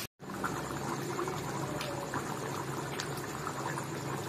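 Thick chicken curry gravy simmering in a metal kadhai on a gas burner, bubbling with a steady patter of small irregular pops.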